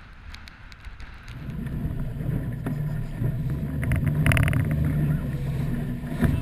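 Suzuki outboard motor running on a small inflatable boat underway, a steady low drone with water and wind noise. It is quieter for about the first second, then comes up louder.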